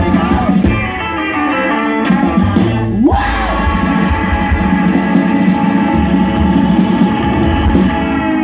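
A rock band playing loud live music, with guitar and singing. There is a quick rising slide in pitch about three seconds in.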